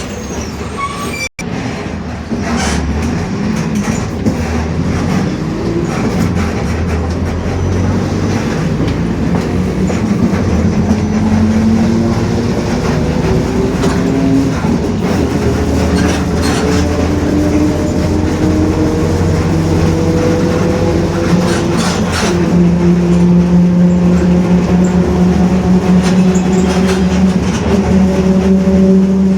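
Mercedes-Benz OF-1721 bus driveline heard from on board, with its diesel running under way and the differential whining. The whine climbs slowly in pitch as the bus gathers speed. About three quarters of the way through it shifts and a lower, louder hum takes over.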